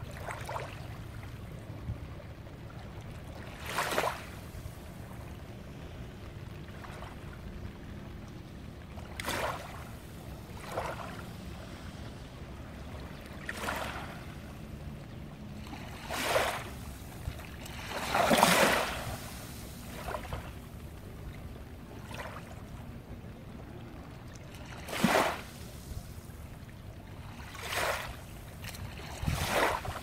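Small, gentle waves lapping and washing onto a sandy shore among basalt rocks, each wash rising and falling away every few seconds, with one larger wash about two-thirds of the way through. A low steady rumble runs beneath.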